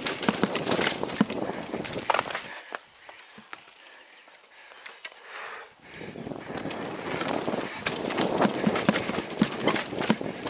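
Mountain bike riding down a rough forest dirt trail, heard from a helmet-mounted camera: tyres running over dirt, roots and rocks with a rapid clatter of knocks and rattles from the bike. The clatter drops away to a quieter hiss for about three seconds, starting between two and three seconds in, then comes back.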